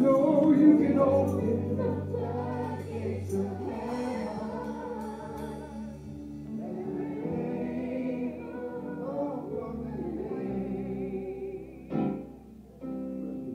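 Gospel worship music: singing voices over sustained keyboard chords, with a short break near the end before it starts again.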